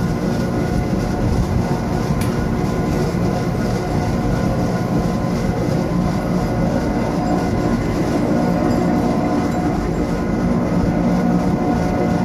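A Wengernalpbahn electric rack-railway train running, heard from inside the carriage: a steady rumble with a constant motor hum and whine. A single sharp click comes about two seconds in.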